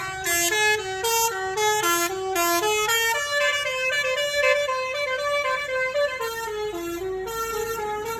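Bus "telolet" musical horn playing a melody. It starts as quick short notes stepping up and down, then moves to longer held notes about three seconds in.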